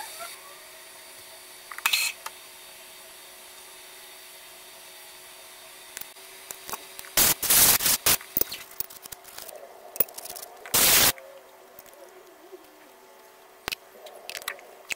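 Workpiece being unclamped and swapped in a milling machine vise: clinks and knocks of metal parts, with two loud hissing blasts about a second long near the middle, over a faint steady hum.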